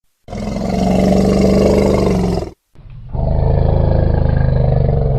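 African bush elephant giving two long, low roars. The second, deeper one starts just under three seconds in and carries on past the end.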